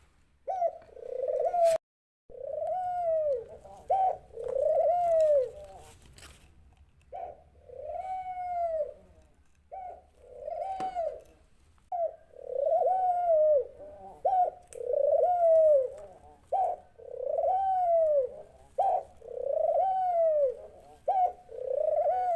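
A dove cooing over and over: low, arched coos about a second long, repeated steadily with short notes in between, about ten in all.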